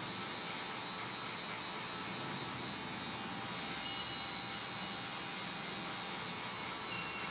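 Electric hair clipper fitted with a 0.5 guard running steadily as it cuts short hair on the side of the head.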